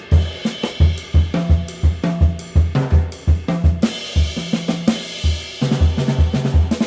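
Jazz drum kit played live: bass drum kicks about two to three a second under snare hits and cymbal and hi-hat wash, with a few pitched notes from the band underneath.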